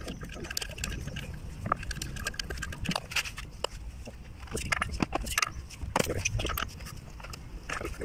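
Hand tools working at the front wheel hub nut of a VAZ 2102: scattered, irregular metallic clicks and clinks over a low steady hum.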